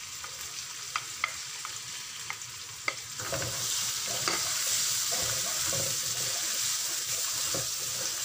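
Sliced red onions sizzling in hot oil in a non-stick wok along with crushed garlic and ginger, with a few sharp clicks in the first three seconds. From about three seconds in, a wooden spatula stirs and scrapes them and the sizzling grows louder.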